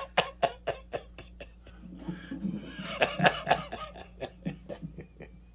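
Electric guitar strings picked with a muted, clicky attack in a quick, even train-beat rhythm, about six or seven strokes a second. It thins out for a moment, comes back, then fades near the end.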